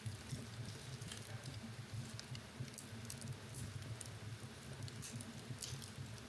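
Wood fire burning in a fireplace: a low steady rumble of flames with irregular small crackles and pops, a few sharper pops near the end.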